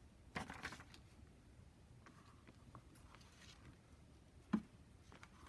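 Faint handling noises: a brief rustle about half a second in, a few soft ticks, and one light tap near the end, from hands working with a notebook and its elastic bookmark cord.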